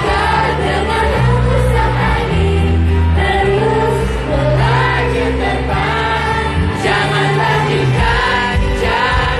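Live pop song played loud through PA speakers: a group of young women singing in unison over a backing track with a steady bass line.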